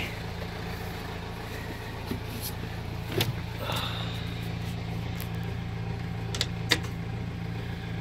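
A diesel engine idling steadily, most likely the tractor left running to warm up, with a few light knocks and clicks as someone climbs into a skid steer cab.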